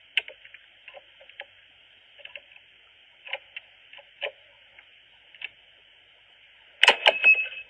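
Keys fumbling, clicking and scraping at a front-door lock, heard through a Ring doorbell camera's microphone: scattered taps, then a louder rattle of clicks near the end.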